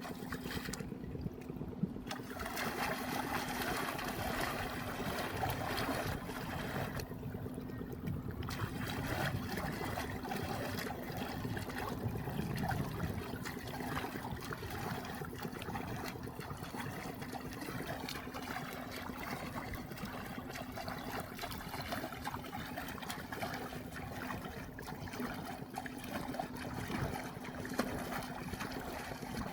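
River water trickling and splashing, with a steady low hum underneath.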